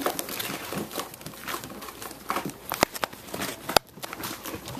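Close rustling, scratching and clicking handling noise from a handheld camera as small puppies clamber over it and over clothing, with two sharp knocks in the second half.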